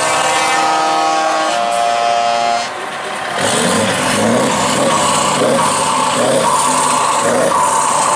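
Truck air horns sounding held multi-tone notes, switching to a new chord about a second and a half in and stopping near three seconds; then a truck's diesel engine runs loud and rough as the tractor unit pulls away.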